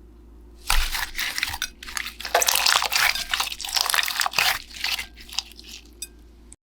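Slime being squeezed and worked by hand, a dense run of wet crackling and squelching with many short pops. It starts under a second in and stops about a second before the end.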